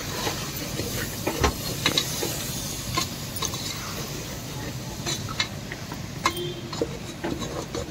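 Steel spoon stirring mutton and tomato pieces in a pressure cooker pot, with scattered clicks and scrapes of the spoon against the metal over a steady sizzle from the frying masala.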